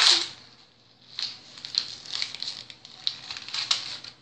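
Irregular light rustling and crinkling from something being handled: a string of short, scattered sounds starting about a second in.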